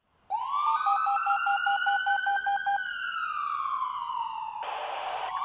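Police siren wailing: the tone rises sharply, holds, slowly falls and then rises again, with a rapid run of short beeps, about six a second, over the first few seconds. A short burst of hiss comes near the end.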